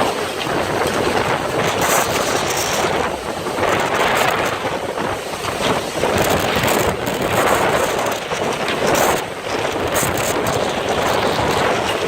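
Strong storm wind gusting against the microphone: a loud, rough rushing noise that swells and eases every two to three seconds, with short crackling buffets.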